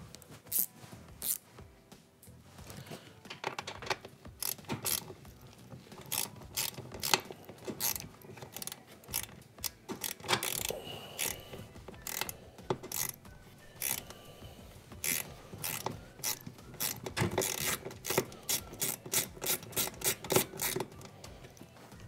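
Ratchet clicking in short, irregular runs as a 1/4-inch hex screw holding a dishwasher's ground wire is turned out, with the runs coming faster and closer together near the end.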